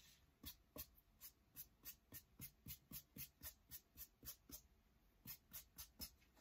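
Faint, quick strokes of a small paintbrush dry-brushing white paint onto a painted picture frame, about three or four short strokes a second, with a brief pause about two-thirds through.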